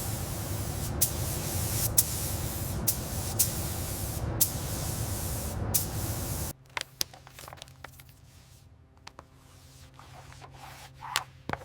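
Paint spray gun hissing steadily, with sharp clicks now and then, cutting off abruptly about six and a half seconds in. After that comes a much quieter low steady hum with scattered light clicks.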